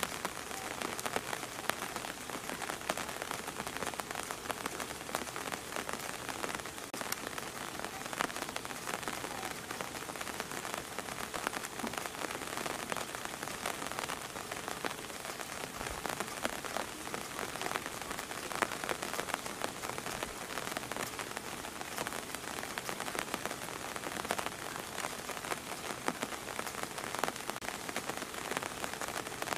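Steady rain, with many separate drops ticking close by.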